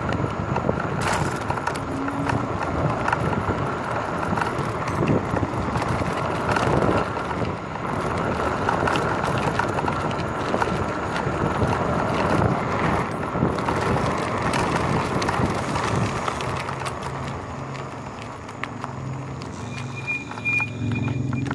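Nanrobot LS7+ electric scooter riding on new street tires over asphalt: steady tire and road rumble with frequent small knocks and rattles from the pavement. A faint steady whine runs underneath.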